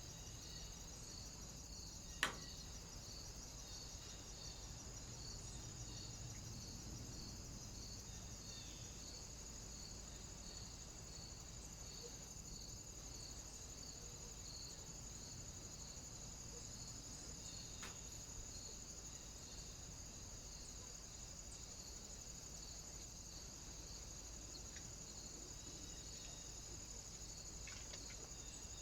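Faint, steady high-pitched hiss with an even ticking a little more than once a second, typical of a trail camera's own electronic noise. One sharp click sounds about two seconds in, and a weaker one later.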